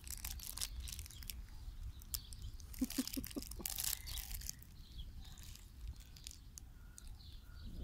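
German shepherd puppy chewing and gnawing a plush toy: irregular soft crackles and clicks of teeth on fabric, densest in the first four seconds, with a few short pitched sounds about three seconds in.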